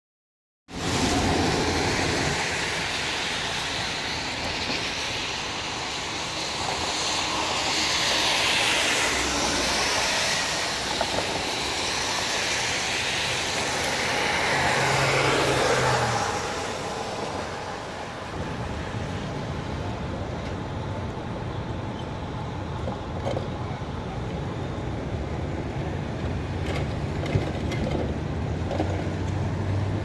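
Cars driving past on a wet street, their tyres hissing on the wet pavement. Two pass loudest in the first half, then the traffic settles to a quieter, steady sound.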